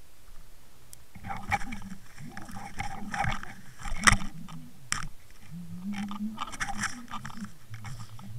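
Irregular scraping, clicking and knocking picked up by an underwater camera on a fishing line as the rig is jerked about in the water. It starts about a second in, with the sharpest knock about four seconds in.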